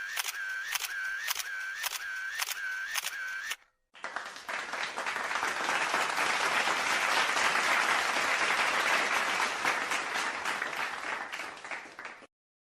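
A camera shutter clicking in a rapid series, about two or three clicks a second. After a short pause, a round of applause builds, holds and dies away.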